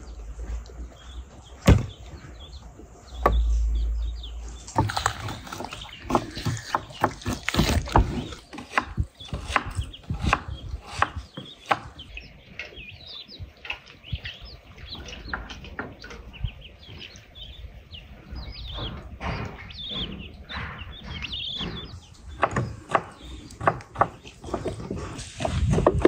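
Ducklings peeping, with many short high chirps through the middle stretch, mixed with scattered knocks and clatter of handling.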